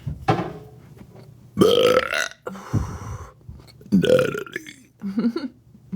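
A woman belching loudly: two drawn-out burps, one a little over a second in and one about four seconds in.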